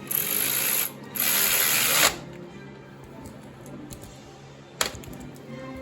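Two short loud bursts of hissing, each just under a second, one right after the other, then a single sharp click near the end; music plays quietly underneath.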